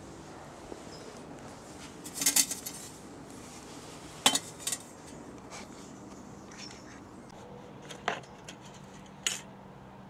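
Thin steel parts of a homemade oil-filter-can wood stove (the perforated tube and its metal grate) clanking as they are handled and set down: a short rattling clatter about two seconds in, then single sharp clinks around four, eight and nine seconds in.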